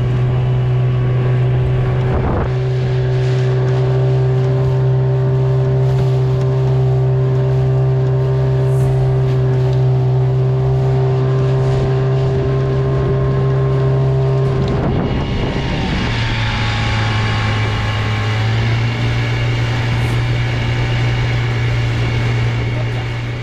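Motorboat engine running steadily at speed under way. About fifteen seconds in, its note shifts and settles a little lower.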